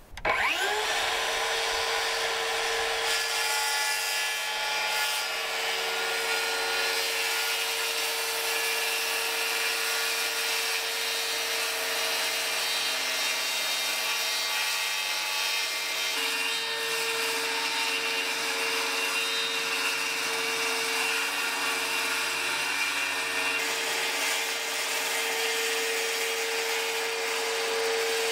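DeWalt circular saw spinning up and cutting a long run through a sheet of plywood, its motor whine holding steady as the blade goes through the wood.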